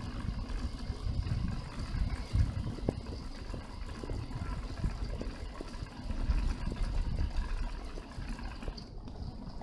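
Wind buffeting the microphone of a camera on a moving electric bicycle, mixed with tyre and road noise: an uneven low noise that swells and eases.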